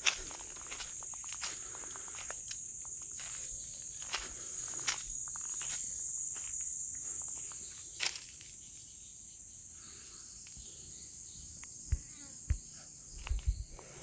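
Steady high-pitched insect chorus, with scattered clicks and rustles. Several footfalls on dry leaves and soil come near the end.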